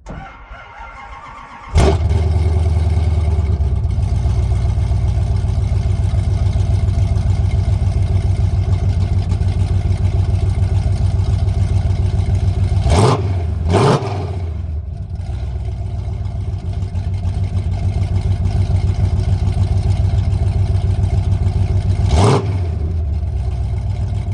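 1969 Dodge Charger engine cranking on the starter, then firing up under two seconds in and idling through Black Widow Race Venom mufflers. Two quick throttle blips come about halfway through, and one more near the end.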